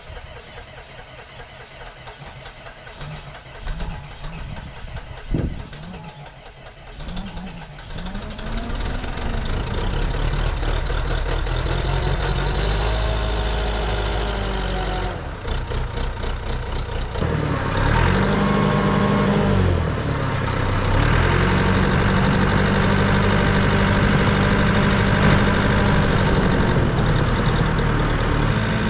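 Engine of a small tracked snow groomer, quiet at first, then running much louder from about eight seconds in, its pitch rising and falling with the throttle before settling into a steady run.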